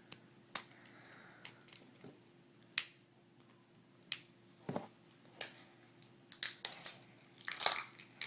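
Plastic packaging being worked open by hand: scattered sharp clicks and snaps, getting busier with crinkling near the end.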